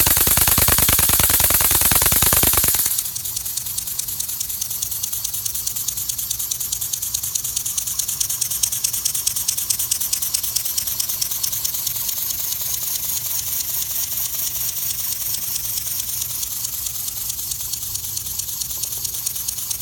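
Miniature V4 steam engine running, its exhaust chuffing in a rapid, even rhythm. About three seconds in it suddenly turns quieter, settling into a steady hiss with fast soft puffs.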